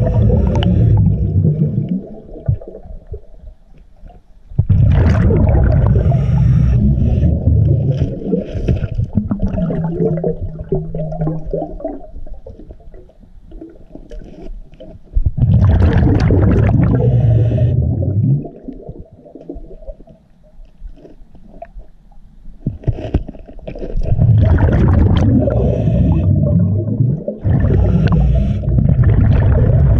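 Scuba regulator heard underwater: a loud bubbling rumble of exhaled air venting from the diver's exhaust valve in repeated bursts of a few seconds, with much quieter stretches in between as the diver breathes in.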